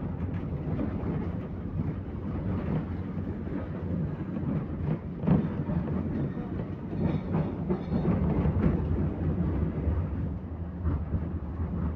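Belkommunmash AKSM-60102 tram running along the track: a steady rumble of wheels on rails with small knocks, and a sharper knock about five seconds in.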